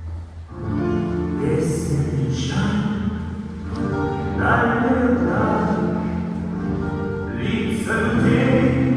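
Recorded music with choral, operatic-style singing, starting after a brief break about half a second in.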